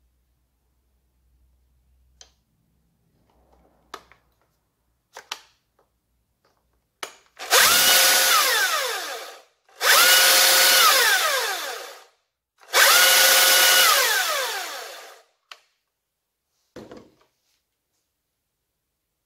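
Husqvarna T540i XP battery chainsaw's electric motor and chain running free in three short trigger pulls, each about two seconds long. Each comes up to speed at once, holds briefly, then winds down with a falling whine. A few sharp clicks of the controls come before and after.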